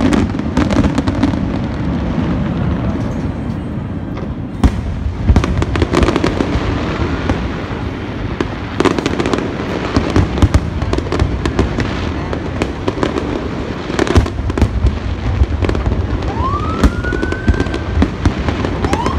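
Aerial fireworks bursting in a rapid, irregular series of bangs over a continuous rumble, with a few rising whistles near the end.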